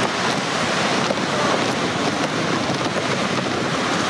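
Ocean waves breaking, a steady rush of surf and whitewater.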